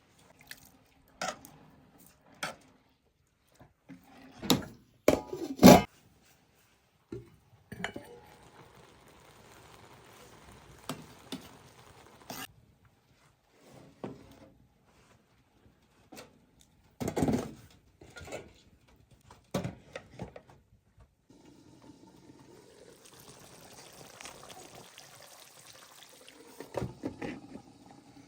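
Cooking sounds: pots and utensils knocking and clattering at irregular intervals, loudest a few seconds in and again past the middle, with spells of liquid being poured in between.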